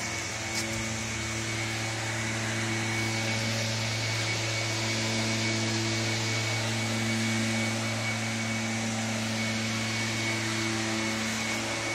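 Steady drone of a running motor-driven machine: an even low hum with a thin high whine and a hiss over it, unchanging throughout.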